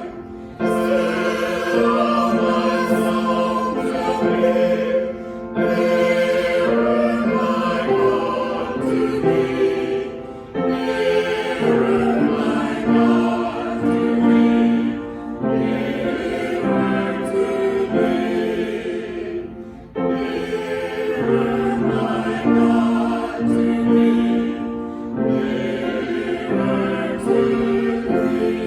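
Choir singing a slow sacred piece in long held phrases of about five seconds, each followed by a short break for breath.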